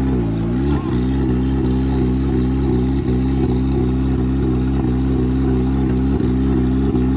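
Off-road race buggy's engine idling steadily, its revs dipping briefly and coming back up just after the start.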